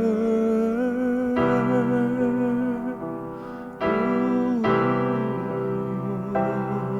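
Solo piano playing slow, held chords, with a new chord struck four times and the sound gradually getting quieter: the closing bars of a ballad after its last sung line.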